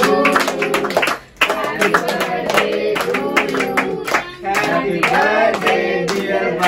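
A song with singing over a beat, with clapping.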